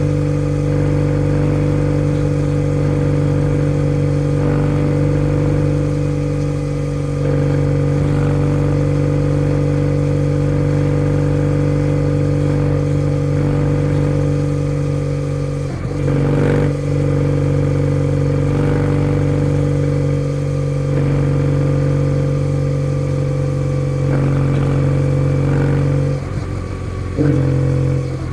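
Kawasaki W650's air-cooled parallel-twin engine through a POSH W1 aftermarket full exhaust, pulling along at a steady cruise with an even engine note. The note breaks briefly about halfway through and again near the end, as the throttle is eased.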